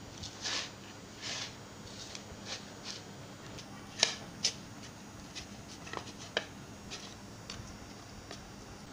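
Hands rubbing and kneading flour and water into dough on a plate: scattered short scraping rustles with a few sharp clicks against the plate, the two loudest about four seconds in.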